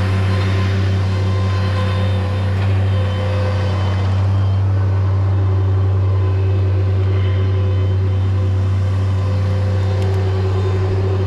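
Engine of heavy equipment running steadily at idle, a constant low drone with no change in speed.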